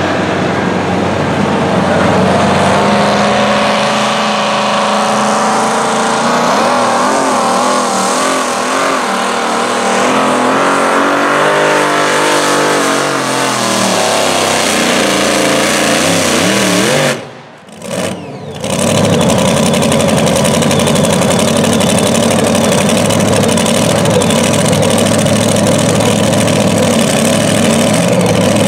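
A modified pickup pulling truck's engine running hard under load while dragging a weight-transfer sled. Its pitch wavers and slides up and down, then falls. The sound nearly drops out for a moment about two-thirds of the way through, then the engine runs on at a steady pitch.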